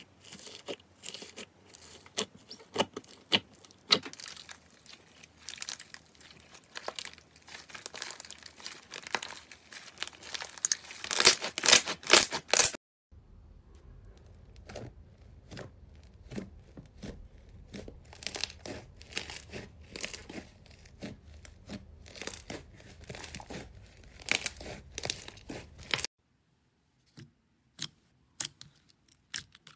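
Slime being squeezed and pressed by hand. First comes dense crackling as foam beads mixed into fluffy slime are crushed, loudest about eleven seconds in. After a sudden cut there are softer, sparser clicks as a smooth slime is pressed, and near the end only a few isolated clicks.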